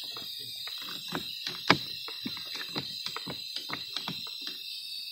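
Car seat belt latch plate being jabbed into its buckle over and over, a run of short clicks and knocks with one sharp click about a second and a half in. The buckle is sticking and will not lock properly, typical of dirt in the mechanism.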